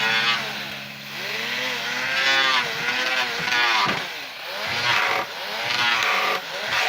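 A motor, likely a power tool, whose pitch keeps rising and falling in swells about once a second.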